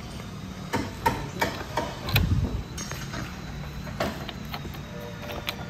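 A few light, irregular metal clicks and knocks as the steering-head nut is fitted onto a Honda PCX 160's steering stem, with a brief low rumble about two seconds in.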